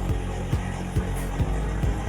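Background music with a steady bass beat, about two beats a second.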